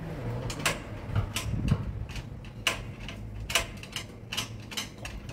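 Irregular sharp clicks and clinks of metal parts and hand tools being handled during a gear repair, about a dozen over a few seconds.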